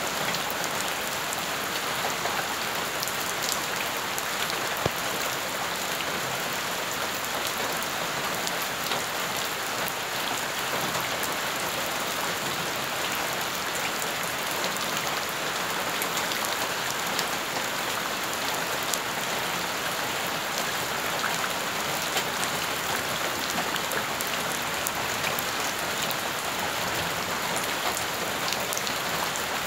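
Steady rain falling on wet ground and shallow puddles, many drops splashing at once with fine individual ticks, and one sharper tick about five seconds in.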